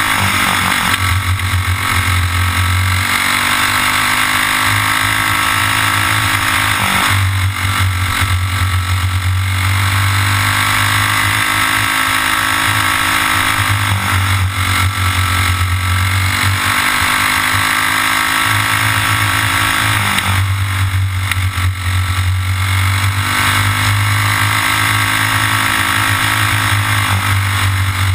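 Racing kart's single-cylinder engine at full race pace, heard from on board: the revs climb steadily for several seconds on each straight, then drop sharply as the driver lifts for a corner, about five times.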